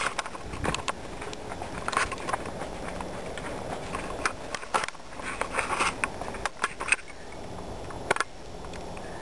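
Footsteps crunching in snow, with irregular crackles and scrapes at uneven intervals.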